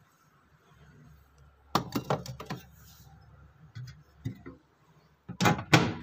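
Stainless steel food containers clinking and knocking as they are handled, in a quick cluster about two seconds in and a few lighter taps after. Near the end come two loud knocks from the fridge's plastic freezer compartment being opened.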